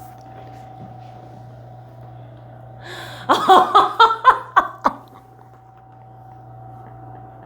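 A woman laughing with relief: a quick run of about seven short laughs starting about three seconds in and lasting about two seconds.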